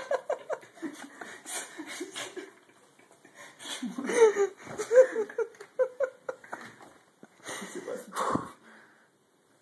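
Young men laughing hard in short, broken bursts with wheezy, breathy gasps.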